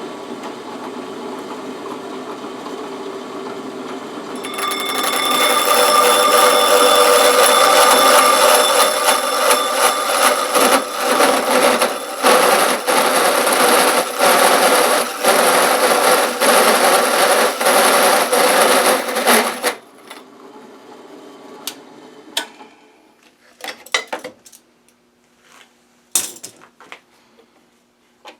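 Drill turning a 3-inch hole saw, running freely at first and then cutting into a plastic 3D-printer filament spool about four seconds in, a loud whining grind that stutters in its last several seconds before the drill stops just under twenty seconds in. A few light knocks and clicks follow.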